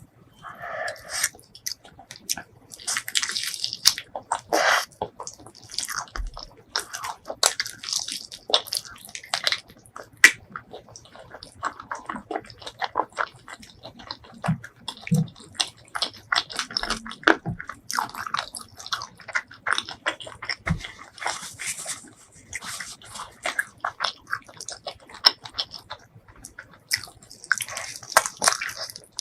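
Close-miked eating: a person chewing and biting food, a steady run of short smacks and clicks.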